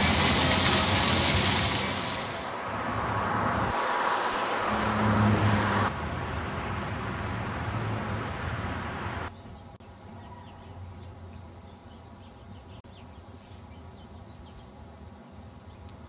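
Street fountain jets splashing, a loud hiss that cuts off after about two and a half seconds. Then a lower traffic rumble, and from about nine seconds in, a quiet outdoor background.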